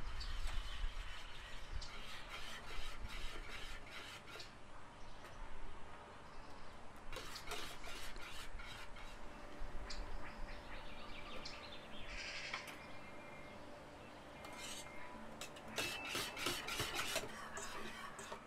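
Kitchen utensil scraping and clinking against cookware: a run of irregular clicks and scrapes.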